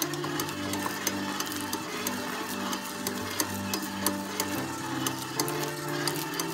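KitchenAid stand mixer running, its dough hook kneading bread dough in the steel bowl, with irregular clicking and knocking as the dough turns. Background music with held notes plays along.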